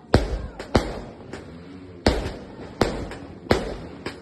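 A 49-shot consumer fireworks cake ('Vesta' by Legendary Fireworks) firing in sequence: about eight sharp bangs, one every half second to a second, each trailing off in a short rumbling decay.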